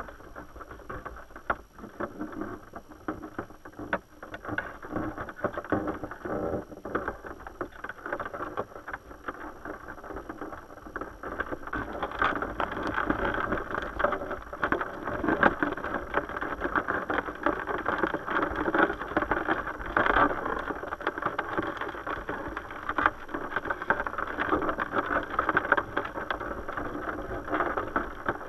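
Muffled underwater river current heard through a GoPro's waterproof housing, with a dense patter of small clicks and knocks from the trap; it grows louder about twelve seconds in.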